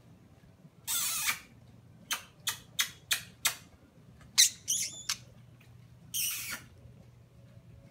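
Budgerigar calling: a harsh call of about half a second, a run of five short sharp chirps, a quick chattering call with high warbled notes, then another harsh half-second call.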